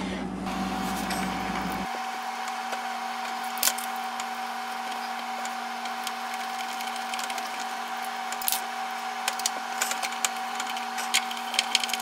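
Light clicks and taps of screws and a hand tool as a part is fastened back onto the refrigerator with two screws, more frequent in the last few seconds, over a steady hum.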